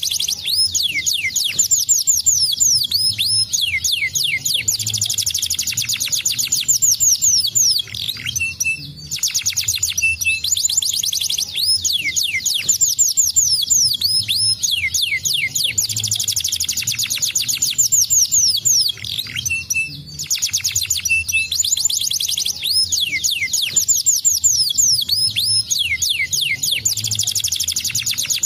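Domestic canary singing in long phrases of fast, high-pitched trills made of rapid downward-sweeping notes, broken by a few short pauses.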